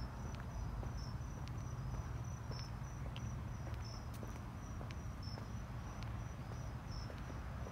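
Insects chirping in high-pitched repeated pulses, one at a fast steady rate and a second, slightly lower one about every second and a half. Faint footsteps on pavement tick along about twice a second under a low rumble of wind and handling noise.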